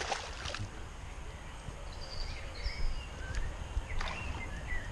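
A hooked pike splashing and thrashing at the water's surface, a burst of splashing in the first half-second and another splash about four seconds in. Small birds chirp in the background.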